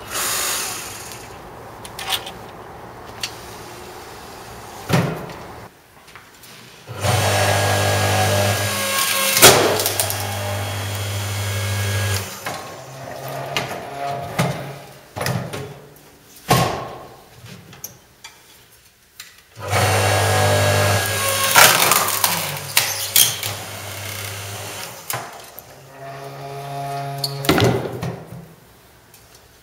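Electric hydraulic log splitter: its motor hums steadily in spells of about five seconds, switched on and off, with sharp loud cracks as the wood splits and scattered knocks of logs being handled.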